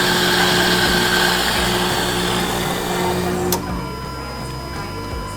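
Coffee machine's water pump running with a steady hum and a hiss of water, test-run during a leak repair, then cutting off with a click about three and a half seconds in.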